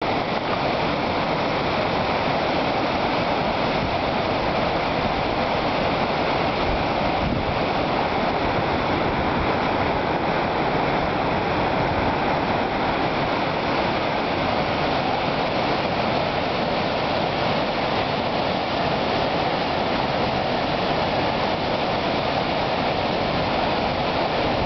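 Swollen river rushing over a waterfall and ford, a steady, loud, unbroken noise of water.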